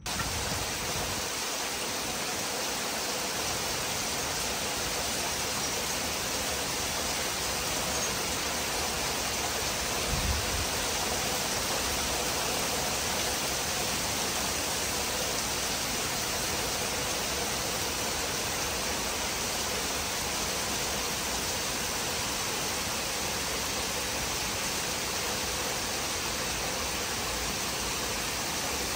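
Heavy summer rain pouring down in a steady, even hiss. A brief low thud sounds about ten seconds in.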